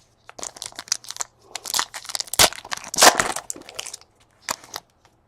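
Plastic wrapper of a trading-card pack crinkling and crunching as it is torn open and handled, in irregular crackles that stop a little before the end.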